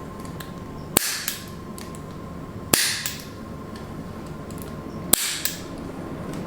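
Chiropractic activator, a spring-loaded hand-held adjusting instrument, firing three times about two seconds apart, each a sharp snap followed at once by a softer second click. It is set to low force and is delivering light impulses to a baby's sacrum.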